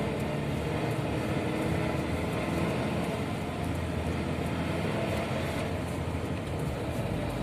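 Steady cabin noise of a car driving slowly, about 20 km/h, on a snowy, icy road: a low engine hum under even tyre and wind noise.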